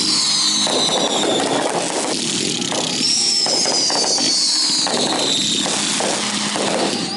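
Fireworks going off in a dense barrage, with continuous crackling and popping. Two long whistles fall in pitch, one at the start and another about three seconds in.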